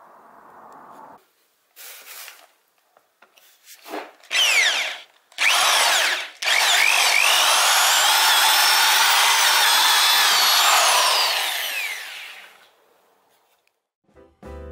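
Freshly repaired old Bosch mains-powered hammer drill, triggered in a few short bursts with its motor whine rising each time. It then runs steadily for about six seconds while drilling into a wooden plank, and winds down with a falling whine.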